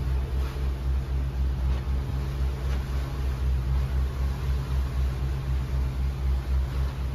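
Boat's diesel engine running under way: a steady low drone with an even throb, a few pulses a second.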